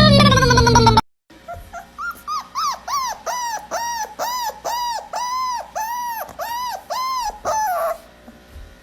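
A dog giving a rapid, rhythmic run of high whining yelps, about two a second, each rising and falling in pitch, ending in a longer falling cry. Before it, a loud pitched sound from the previous clip cuts off about a second in.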